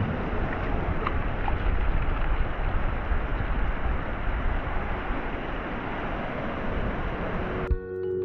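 Small waves washing over shallow sand at the shoreline, with wind rumbling on the microphone. Near the end, music with marimba-like notes and soft thumps comes in.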